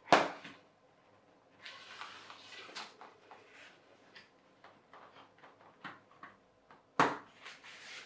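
Handling noise from a stunt kite being assembled on a wooden floor: a sharp knock at the start and another about seven seconds in, with rustling of the nylon sail and small clicks of the fibreglass spars between.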